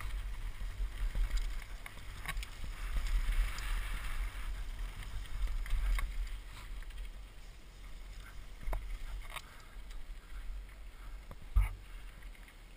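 Wind buffeting a helmet-mounted camera's microphone and mountain bike tyres rolling over gravelly dirt, with scattered clicks and rattles from the bike. It calms about halfway through as the bike slows, and a single thump comes near the end.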